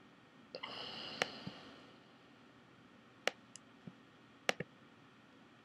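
A few faint, sharp single clicks a second or more apart, as from a computer mouse, with a brief rustle about half a second in.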